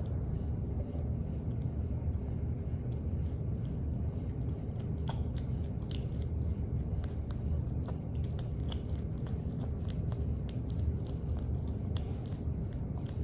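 Kitten eating wet cat food pâté from a plate: lapping and chewing, with many small wet clicks of tongue and teeth, over a steady low hum.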